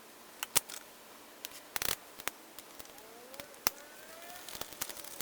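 Transfer tape being peeled off a freshly applied vinyl decal on a car window, giving scattered crackles and sharp ticks, with a few faint short squeaks a little past the middle.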